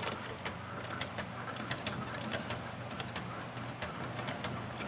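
Light, irregular metallic clicking as a loosened bolt is turned out by hand tool, over a steady low hum.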